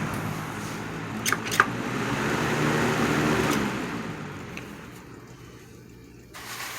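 Patton CA-1284 12-inch rotary box fan switched off and coasting down, its motor hum and blade whoosh fading away over several seconds, with two light clicks a little over a second in. The motor runs down quietly on freshly oiled bearings.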